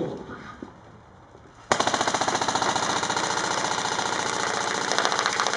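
Airsoft electric gun firing a sustained full-auto burst: a fast, even stream of shots that starts suddenly about a second and a half in and keeps going.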